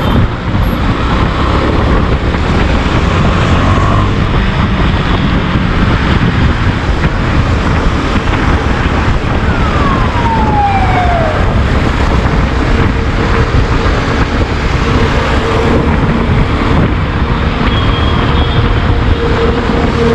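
KTM 390 Duke BS6's 373 cc single-cylinder engine running at a steady low road speed, with wind noise on the microphone. A brief falling whine comes about ten seconds in.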